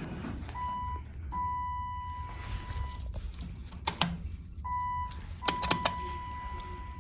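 Electronic beeper of a Dover Impulse hydraulic elevator sounding a steady mid-pitched tone in a pattern of a short beep followed by a long one, twice. Sharp clicks come just before and during the second long beep.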